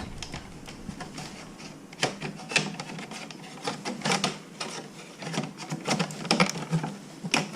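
Irregular plastic clicks and clacks from a Ram pickup's HVAC control panel and its bezel being handled and pushed into place, several sharp clicks a second at times.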